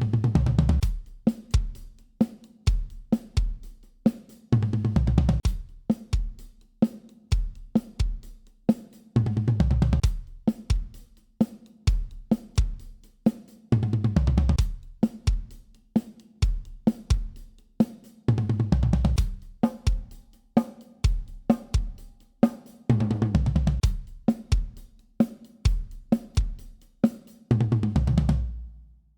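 Acoustic drum kit played in short grooves of kick, snare, hi-hat and cymbals, each ending in a heavier tom fill, with the drum heads damped by magnetic felt-ring Muff Bite dampers. The dampers cut the overtones for a compressed, short-sustain drum sound. The playing stops abruptly at the end.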